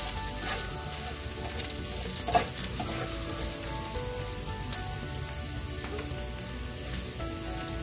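Diced garlic with cumin and mustard seeds sizzling steadily in hot oil in a nonstick frying pan. A few light scrapes of a plastic spatula stirring the pan come in the first half.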